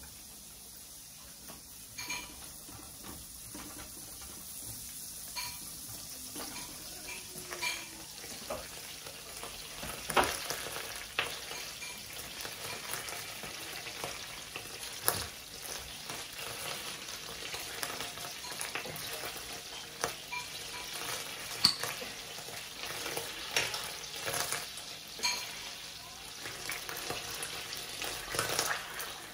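Butter and oil sizzling in stainless steel pans, with a silicone spatula stirring and knocking against the pan in scattered sharp clicks. The sizzle builds up a couple of seconds in and then holds steady.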